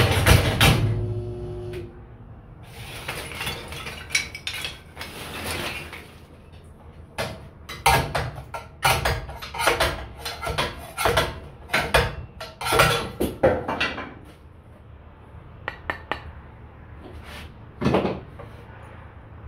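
Split kindling sticks clattering and knocking against a steel bench and each other as they are pushed off into a collection bag, in an irregular run of wooden knocks that thins out near the end with a few single knocks. Near the start the homemade kindling machine's drive is heard humming and then running down.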